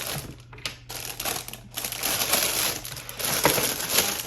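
Plastic packaging crinkling and rustling as it is handled and opened, with many small sharp clicks and crackles.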